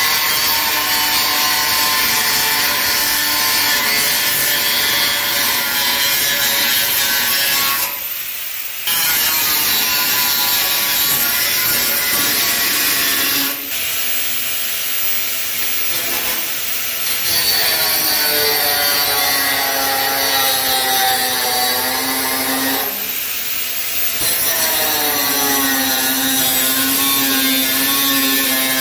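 Electric angle grinder cutting into a hollow steel roof beam with an abrasive disc: a loud, steady whine over a grinding hiss, the motor's pitch sagging as the disc bites into the metal. The grinder stops briefly about eight seconds in and again about twenty-three seconds in, then runs up again.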